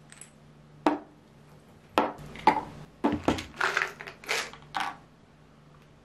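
Small glass supplement bottles and tablets handled on a table: separate knocks and clicks as bottles are set down and opened, then a quick run of rattles about halfway through as tablets are shaken out onto the tabletop.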